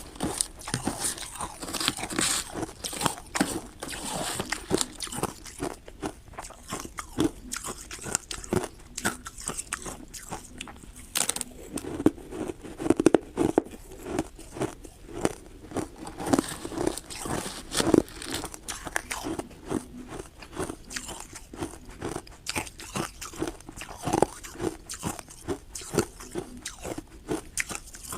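Ice being bitten and chewed: dense, irregular crunching and cracking, bite after bite.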